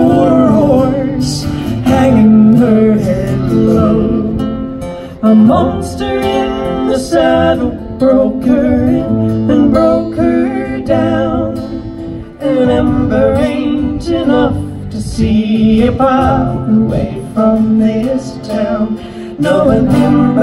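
Live acoustic guitar and mandolin playing a country-folk song, with singing over them.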